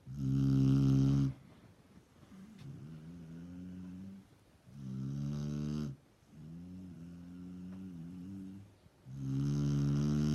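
Snoring in a slow, regular rhythm: three loud snores about four and a half seconds apart, each followed by a longer, quieter snore.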